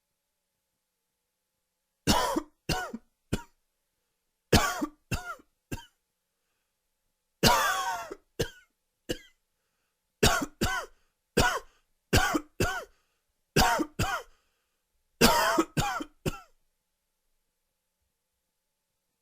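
A man having a dry, wheezy coughing fit that the uploader puts down to allergies. It comes in about seven bursts of two or three harsh coughs each, starting about two seconds in and stopping a few seconds before the end.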